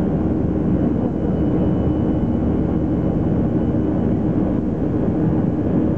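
Cabin noise of a Boeing 737-300 climbing after take-off, heard at a window seat beside the wing: the CFM56-3 turbofan engines running at climb power as a steady drone with a low hum and a faint high whine.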